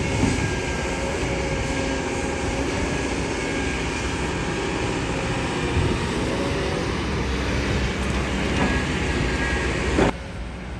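Excavator engine running steadily with the clatter of working machinery and a few sharp metallic knocks. The level drops suddenly near the end.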